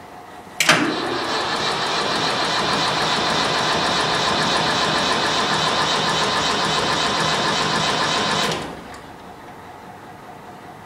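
International crawler tractor's diesel engine, standing unused for six years, turning over hard with a fast, even beat and blowing white smoke. It starts abruptly about a second in and cuts off suddenly after about eight seconds, without settling into a run.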